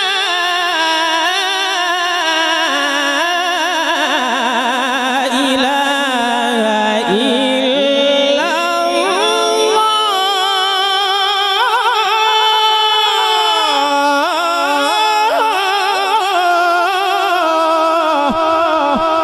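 A male qari reciting the Quran in the melodic mujawwad style, drawing one syllable out into a single long, unbroken phrase with wavering, ornamented turns of pitch that rise and fall.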